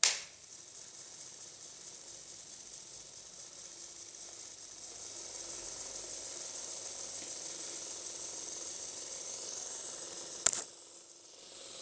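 Small 12-volt motor of a homemade toy washing machine switched on with a click, then running steadily with a thin high whine as its belt and pulley churn the water in the drum. A sharp click about ten and a half seconds in, with the sound dropping briefly before it picks up again.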